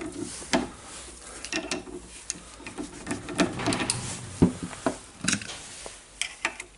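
Irregular metallic clicks and short scrapes of hand tools, pliers and then a screwdriver, working at a jammed steel anvil in an impact wrench's hammer housing clamped in a vise, with one sharper clack about halfway through.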